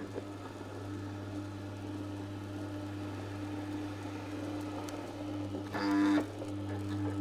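Green Star Elite twin-gear juicer running with a steady low hum as its twin gears press frozen banana and strawberry out as soft-serve. About six seconds in there is a brief louder pitched sound.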